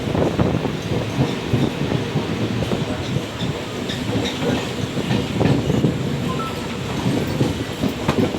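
MEMU electric multiple-unit train moving along the track, its wheels clattering over the rail joints with a steady rumble.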